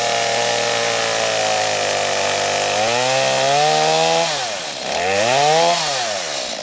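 Small two-stroke gas chainsaw cutting through a rotting log. The engine runs steadily, then revs up twice, its pitch sagging between the two rises and falling away near the end.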